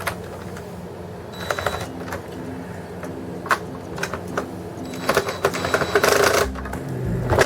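Screws being driven into a Hoover vacuum's plastic housing during reassembly: two bursts of rapid mechanical clicking and whirring, a short one about a second and a half in and a longer one from about five seconds in, with scattered knocks and clicks of the plastic parts being handled.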